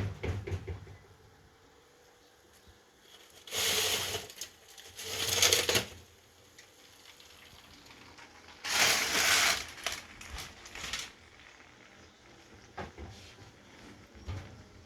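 Rustling, crinkling handling noise in three bursts of about a second each, with a few small clicks and knocks between them.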